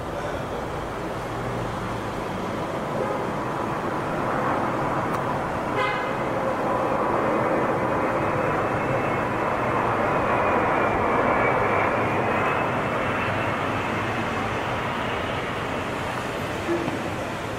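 Airbus A380's four jet engines passing low on approach over the runway: a jet roar that builds to its loudest about ten to twelve seconds in and then eases, with a whine that rises and then falls in pitch as the aircraft goes by.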